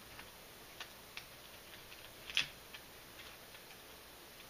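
Faint, scattered clicks and light handling noise from hands working a bandana over a plastic airsoft rifle stock, with one sharper click about two and a half seconds in.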